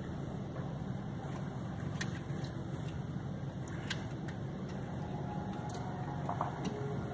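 Steady low rumble of a car running at low speed, heard from inside the cabin.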